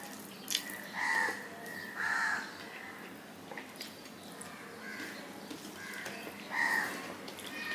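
Three short, harsh animal calls, about a second in, two seconds in and near the end, the loudest sounds. Between them come faint clicks and rustles of a hand mixing rice on a steel plate and of eating.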